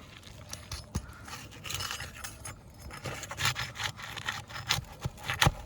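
A flat pry bar working under brittle asphalt roof shingles: irregular scraping and rasping as the shingles are lifted and the nails pried loose, with a few sharp clicks and knocks, the loudest near the end.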